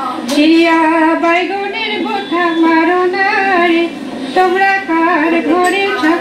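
A single high voice singing a melody solo, with long held notes and short breaks between phrases.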